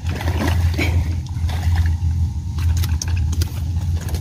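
Hooked pangasius (tra catfish) thrashing and splashing at the surface on the line, in irregular bursts, heaviest in the first second or so. A steady low motor hum runs underneath.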